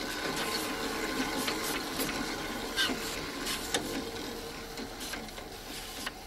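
Microfilm reader winding film: a steady mechanical whir with a low hum and scattered clicks as the film is wound on by a hand-turned knob.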